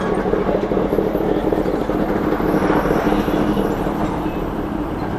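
Vehicle engine running steadily at low, unchanging revs.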